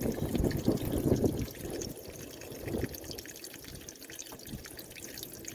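Coolant draining out of an opened radiator drain tap, splashing and dripping, louder for the first second and a half and then a thinner trickle.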